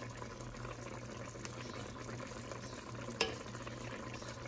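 Chicken stew simmering in a pot, a steady faint bubbling over a low hum, with a wooden spoon knocking once against the pot about three seconds in.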